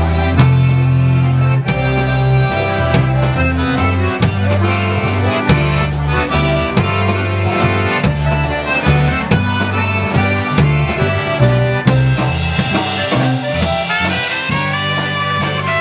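Live polka band playing an instrumental break: a concertina carries the lead over electric bass and drum kit on a steady two-beat rhythm. Trumpet and clarinet join in near the end.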